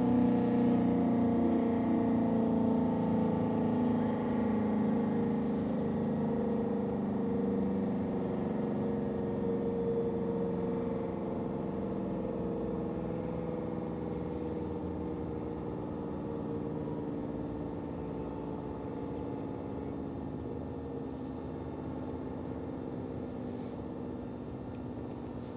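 Outdoor warning siren winding down, its tone sinking slowly in pitch and fading over many seconds.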